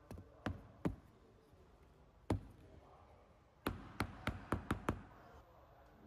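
A series of sharp knocks or taps at uneven intervals: three in the first second, one more a little past two seconds, then six in quick succession about three and a half seconds in.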